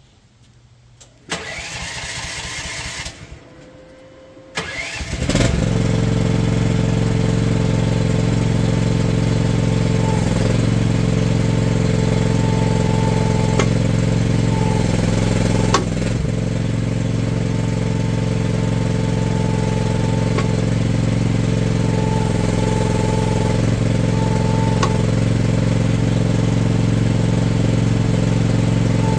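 Mach Pro MP15 mini excavator's engine being started: the starter cranks briefly, then cranks again and the engine catches about five seconds in. It then runs steadily while the hydraulics are worked, with a few faint clicks.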